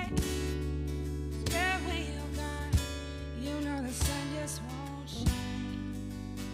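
Live acoustic band playing an instrumental passage of a slow love song: acoustic guitar strumming over sustained keyboard chords from a Nord Electro 3, with a Meinl cajon struck about every second and a bit.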